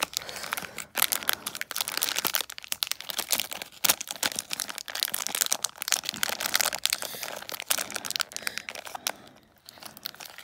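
Foil blind-bag toy packet crinkling and crackling as it is squeezed and pulled at to tear it open, the packet proving hard to open. The crackling eases off briefly near the end.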